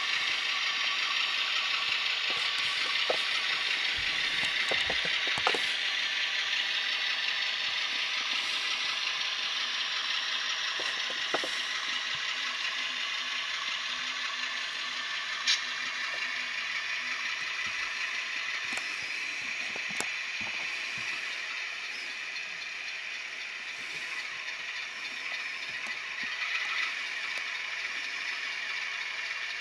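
Model diesel locomotive's sound decoder playing a GE diesel engine running, heard through the model's small onboard speaker as a steady, rattly, tinny engine sound. A few sharp clicks sound over it.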